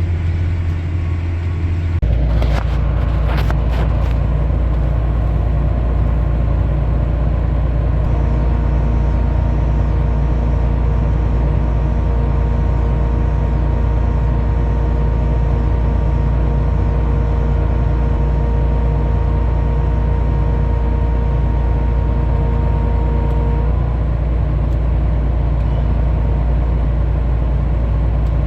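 Farmall 450 tractor engine running steadily under load. Its note drops about two seconds in, with a few metallic clanks. A steady whine joins about eight seconds in and stops a few seconds before the end.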